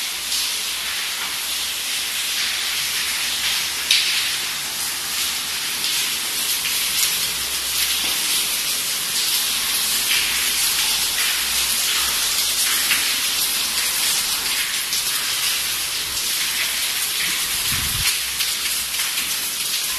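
Steady hiss of rainwater leaking through the roof into the building and running and dripping down the stairwell, with a single knock about four seconds in.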